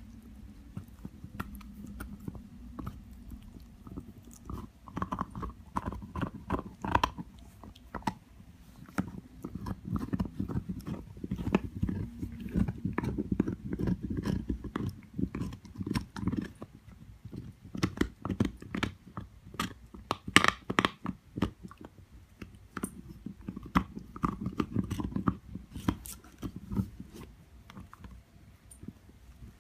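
A young dog gnawing an antler chew: irregular hard crunching and scraping bites with the teeth grinding against the bone, coming in louder bouts.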